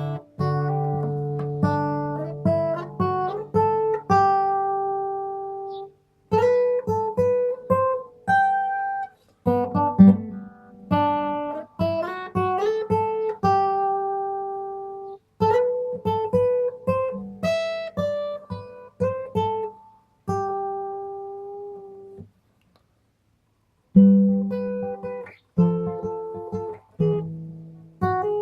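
Acoustic guitar played in picked notes and chords, phrase after phrase with short pauses and a silence of about two seconds near the end, as recorded by a Nokia N8 phone's microphone in a video sound check.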